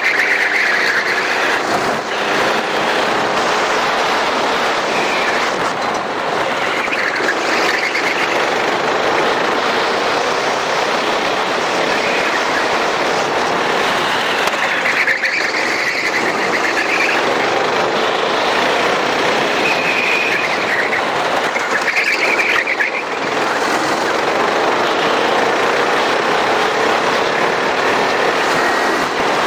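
Racing kart engine heard on board, its pitch rising in long sweeps again and again as the kart accelerates, under a loud steady rushing noise.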